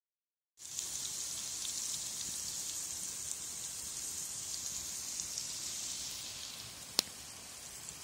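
Ground beef sizzling in a cast-iron Dutch oven: a steady high frying hiss with small pops, starting about half a second in and easing off near the end. A single sharp click comes about seven seconds in.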